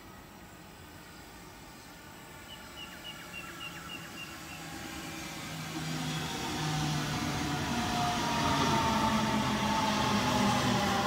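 Sydney Trains Millennium double-deck electric train pulling in to the platform. Its rumble grows steadily louder and an electric whine from its drive falls slowly in pitch as it slows. A short run of high chirps sounds about three seconds in, before the train is close.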